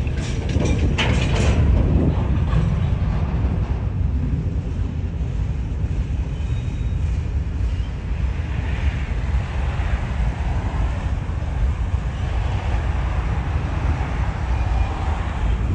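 BNSF freight train's cars rolling past on the rails: a steady low rumble with some wheel clatter, with a few clicks in the first couple of seconds.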